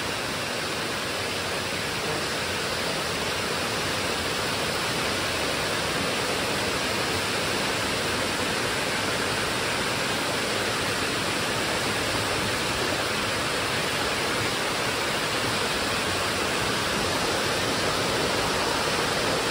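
Steady rush of water flowing into and through fish hatchery rearing tanks, an even hiss with no breaks.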